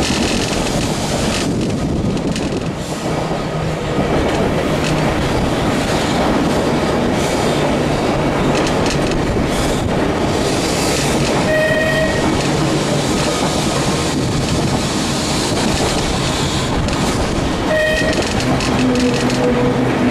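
Manx Electric Railway electric tramcar running along the track, heard from on board: a steady loud rumble of wheels on rail and motor hum, with two brief high-pitched squeals about twelve and eighteen seconds in as the car rounds a curve.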